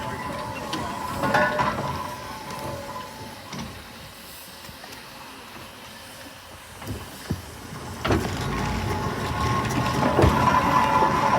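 Fowler BB1 steam ploughing engine running on the road, with a steady mechanical clatter and a few sharp knocks. It is louder again near the end.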